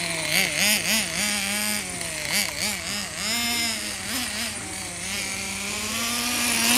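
Small glow-fuel engine of a vintage 1/8-scale Todoroki Road Ace RC car. Its pitch rises and falls in quick repeated swings as the throttle is worked through the corners. Near the end the pitch climbs steadily as the car accelerates.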